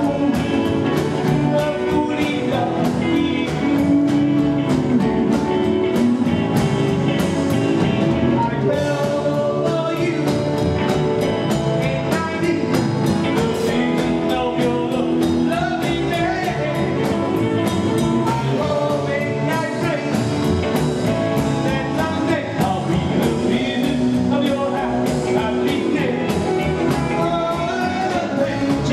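Live 1950s-style rock 'n' roll band playing: male vocals over acoustic guitar, double bass, drums and keyboard, with a steady beat.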